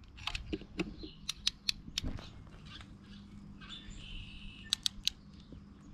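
Irregular sharp metallic clicks and taps of a wrench on a crowfoot adapter being hooked onto, turned on and reset on the injector line nuts of a P-pump Cummins, over a faint steady low hum. A short high chirp comes about four seconds in.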